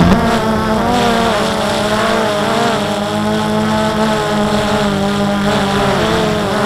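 DJI quadcopter's motors and propellers whining close up, as heard from the camera it carries, several pitches wavering up and down together as the motor speeds change while it maneuvers.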